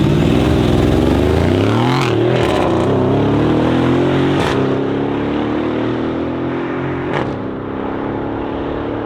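High-performance car engine revving hard as the car accelerates through the gears, with a sharp break in the note at each upshift, about two, four and a half and seven seconds in, then fading slowly.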